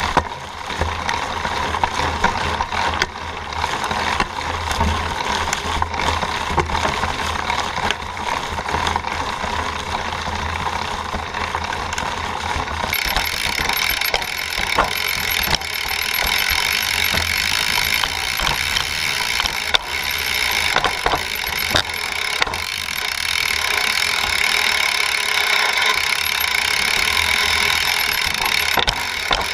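Mountain bike riding over a leaf-covered dirt trail, heard from a camera on the frame: a steady rush of tyre noise with many small rattles and knocks from the chain and frame. About thirteen seconds in, the rush turns brighter and louder.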